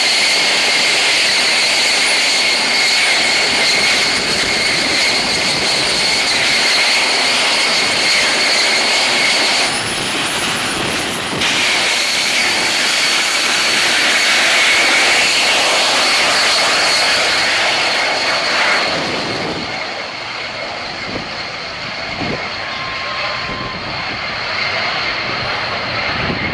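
Homemade turbojet engine on a drag-racing go-kart running loud and steady: a high turbine whine over a rushing jet roar. About twenty seconds in, the whine fades and the sound turns duller and quieter as the kart gets far down the strip.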